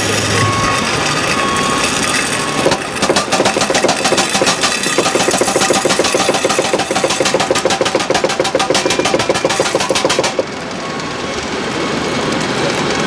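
Radio-controlled model forklift running, giving a rapid, even mechanical rattle of many ticks a second. The rattle starts about three seconds in and cuts off suddenly about ten seconds in, over a steady background din.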